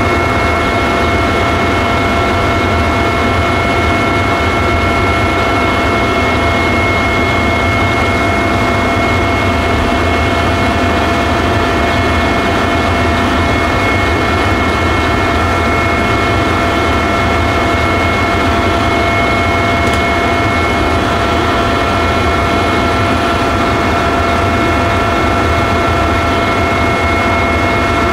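Helicopter in steady flight, heard from on board: a loud, constant engine-and-rotor roar with several steady high whining tones over it.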